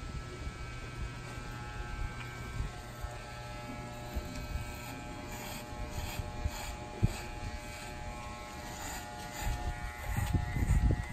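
Wahl electric hair clipper buzzing steadily as it trims short hair at the back and side of a head. A burst of low rumble comes in near the end.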